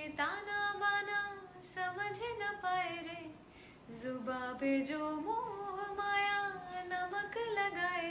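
A woman singing a slow melody with long held, gliding notes, in phrases with short breaks between them, with little or no accompaniment.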